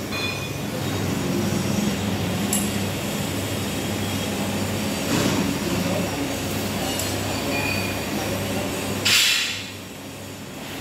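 Crane hoist running with a steady hum and rattling as it lifts a farm machine. A short burst of hiss comes about nine seconds in, and the running is quieter after it.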